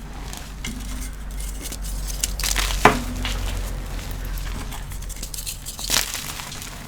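Pressed powder chalk blocks being crushed and crumbled, with crackling. There is a sharp clink about three seconds in and another near the end.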